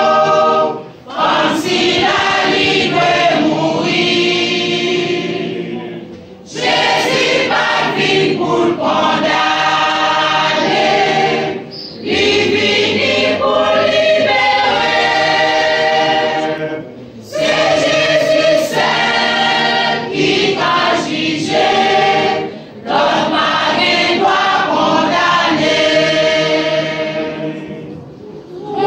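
A youth choir singing together in long phrases, broken by short pauses every few seconds.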